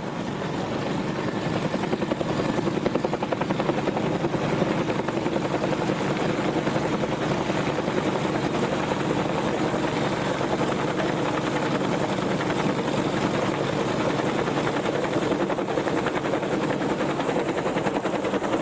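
Helicopter rotor beating rapidly and steadily, growing louder over the first couple of seconds and then holding level.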